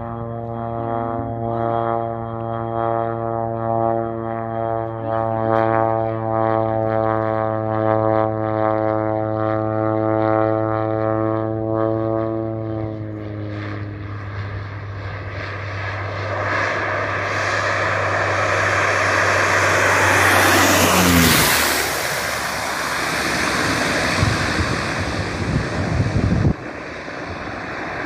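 Air Tractor 402B crop duster's turboprop engine and propeller: a steady pitched drone for the first dozen seconds that bends down in pitch and fades, then a rising roar as the plane comes through low, its pitch dropping at the pass about 21 seconds in. The sound breaks off suddenly near the end.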